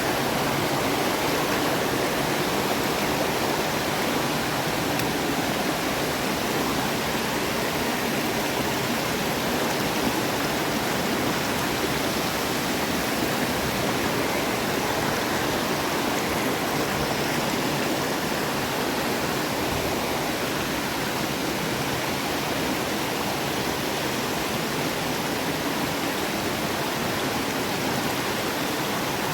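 River water rushing and splashing over stones: a steady, even noise that holds the same level throughout.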